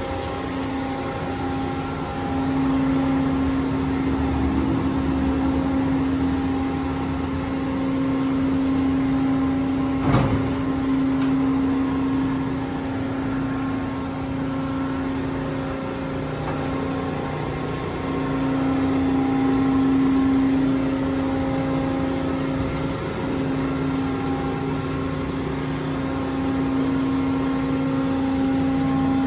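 Autec 260 rollover car wash machine running: a steady machinery hum from the moving gantry and spinning side brushes, with the hiss of water spray that drops away about ten seconds in, along with a single sharp knock.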